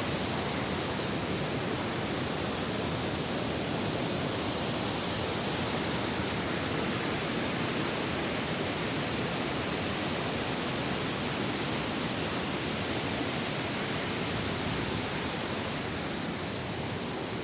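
Steady, unbroken rush of water falling at a waterfall.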